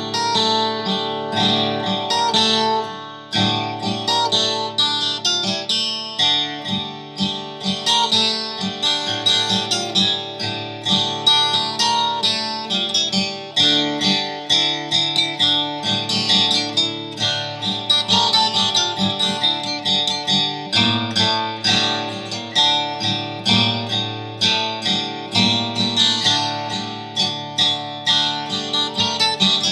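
Acoustic guitar music: a steady run of plucked notes and strums with a quick, even rhythm.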